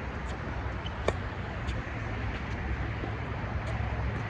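Steady low rumble of road traffic, with one sharp racket-on-ball pop about a second in and a few fainter ticks.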